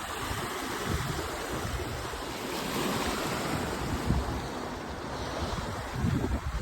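Ocean surf washing in, with wind buffeting the microphone in uneven low gusts, strongest near the end.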